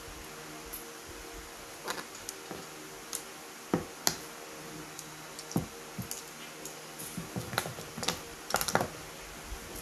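Irregular small clicks and taps of metal audio jack plugs and a test probe being handled on a tabletop while soldered cables are checked. The clicks come sparsely at first and bunch together in the last few seconds.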